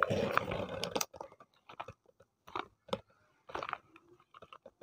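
Plastic bubble wrap crinkling and small cardboard soap boxes being handled: a burst of rustling in the first second, then scattered faint crackles and taps.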